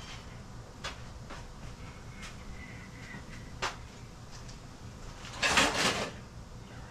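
Off-camera workshop handling noises as parts and tools are searched through: a few light clicks, then a short clattering scrape about five and a half seconds in.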